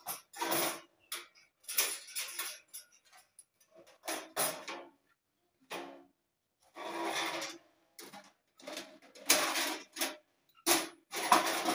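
Metal clattering and scraping as a stainless steel Tsotso wood-burning stove and its loose parts (a metal plate, a wire stand) are handled and shifted, in short irregular bursts.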